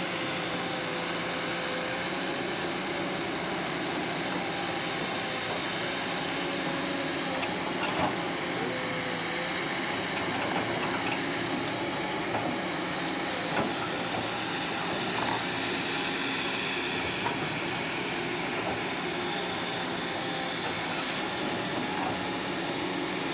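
Kobelco SK200 excavator's diesel engine running steadily, an even continuous noise with a few faint clicks, on freshly repaired common-rail injectors.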